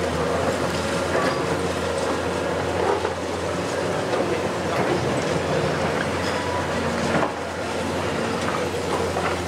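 Hitachi 870 XXL long-reach demolition excavator running steadily with a constant low engine hum, while its grapple tears at the concrete and rubble crunches and clatters down in irregular knocks.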